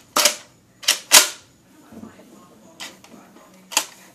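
Drum-fed Nerf dart blaster being worked and fired: a string of about five sharp plastic clacks at uneven spacing, the loudest around a second in.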